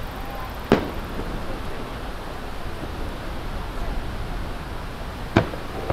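Two sharp bangs of aerial firework shells bursting, one just under a second in and one near the end, over steady background noise.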